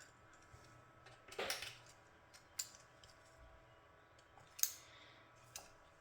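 Faint scraping and small clicks of a hand tool scraping the enamel off the end of a thin enamelled copper wire, readying it to take solder. A short scrape comes about a second and a half in, followed by a few sharp clicks.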